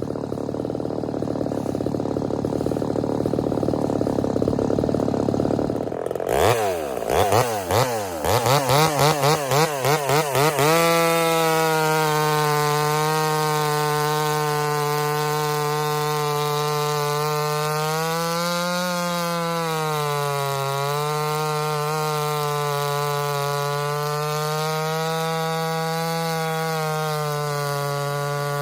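Ported Homelite VI-130 two-stroke chainsaw running. It is revved in a rapid series of throttle blips, then held at steady high revs, likely a long cut through firewood, its pitch sagging briefly under load about two-thirds of the way through.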